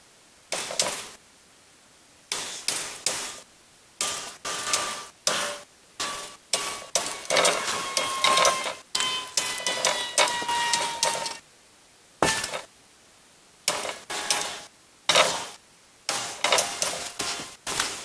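Chalk drawing on a chalkboard: a run of quick scraping strokes and taps with short pauses between them. In the middle stretch some strokes squeak with a thin tone that slowly falls.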